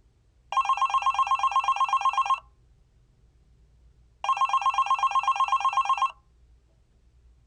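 Telephone ringing twice, each ring a rapid warbling trill about two seconds long, with a pause of about two seconds between them.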